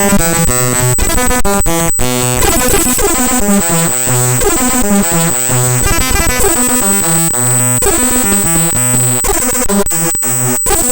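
Raw bytes of the mspaint.exe program file played directly as audio: harsh, buzzy electronic tones that jump between fixed pitches every fraction of a second over a steady high whine, with a few brief dropouts.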